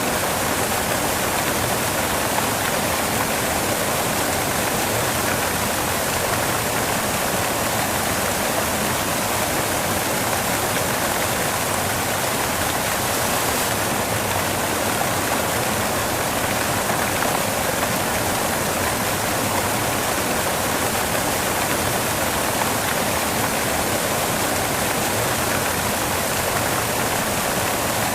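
Steady, even white-noise hiss at a constant level, with no pitch and no separate events.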